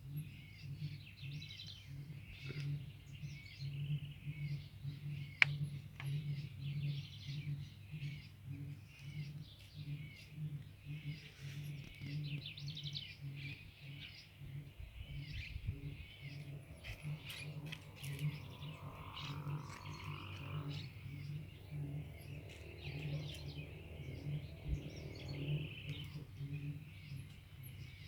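Many small birds chirping and twittering continuously, several calls overlapping, over a low hum that pulses about three times a second.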